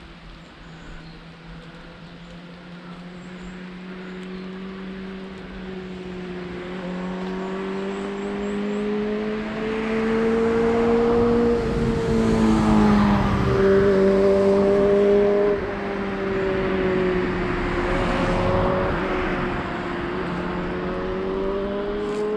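A motor vehicle engine running nearby, its hum wavering slightly up and down in pitch, growing louder from about six seconds in and staying loud through the middle.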